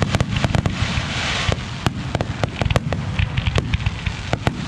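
Aerial fireworks display: many sharp bangs and pops in quick, irregular succession over a steady low rumble, with a crackling hiss about a second in.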